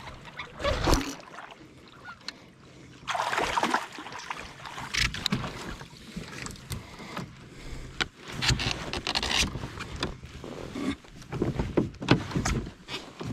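A hooked fish splashing at the surface beside a kayak, then being scooped up in a landing net. Irregular splashing and sloshing water, with scattered knocks of the net and gear against the kayak.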